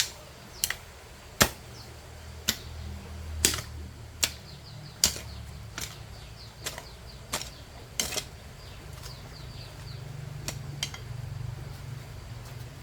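A digging tool striking the ground again and again while digging up earthworms: about a dozen sharp, irregular strikes roughly one a second, growing fainter in the last few seconds.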